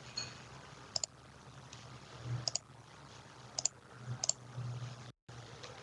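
Computer mouse clicking: four quick double clicks about a second apart, over a faint low hum.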